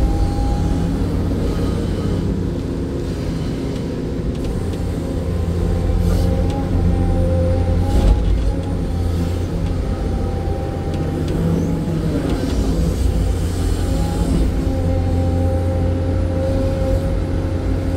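Hydraulic excavator's diesel engine and hydraulic pump running steadily under working load, heard from inside the cab, with steady higher tones over the low engine hum. A single sharp knock sounds about eight seconds in.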